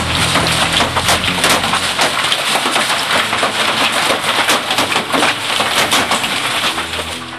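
Hailstones pelting down in a hailstorm: a loud, dense clatter of countless sharp impacts over a steady rush of noise.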